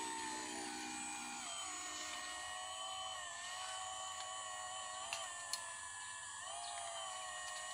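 Hydraulic pump of a radio-controlled Kobelco SK200 scale excavator whining steadily as the excavator digs, its pitch wavering and dipping now and then. Two short sharp clicks about half a second apart come about five seconds in.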